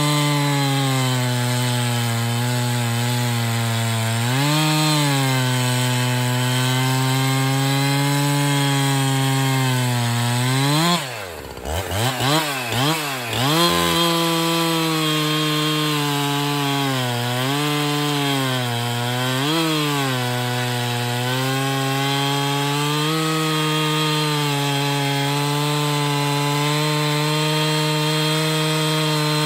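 Husqvarna 365 Special two-stroke chainsaw running at full throttle, cutting through a log at a steady high pitch. About eleven seconds in the throttle is let off and the revs drop, are blipped up a few times, then climb back to full throttle and the saw cuts on.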